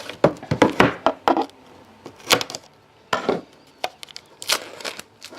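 Trading-card box being handled and opened: a quick run of sharp taps and knocks, then a few single knocks spaced out.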